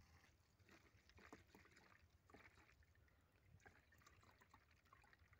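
Faint trickle and gurgle of diesel fuel being poured from a plastic jerrycan into an engine's fuel tank, with small irregular splashes and crackles.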